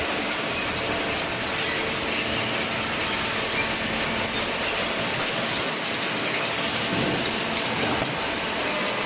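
Horizontal cardboard baler running, a steady dense mechanical clatter and rattle.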